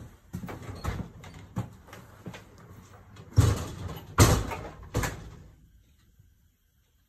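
Footsteps on a hard floor, then a door with a glass panel opening and banging shut about three and a half to four seconds in, followed by another, lighter bang about a second later.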